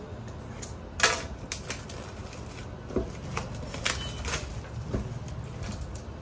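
Irregular sharp clicks and taps from handling a cardboard phone box and a small cutter, the loudest about a second in, over a steady low background hum.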